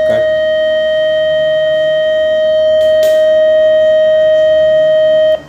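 Shalya MX electrosurgical (diathermy) unit sounding its monopolar cut-activation tone while the pencil's cut button is held: one steady, loud, high beep that stops suddenly near the end. The tone sounds, but the tip does not cut into the soap, which is the reported monopolar output fault.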